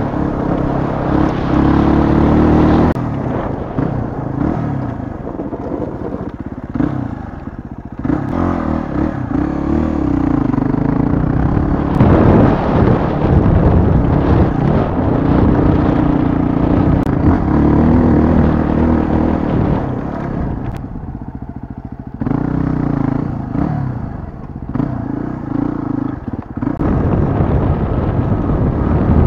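Yamaha WR250R's single-cylinder four-stroke engine heard on board while riding a rough gravel track. The engine note rises and falls with the throttle and eases off briefly about four times, with clatter from the loose stones under the tyres.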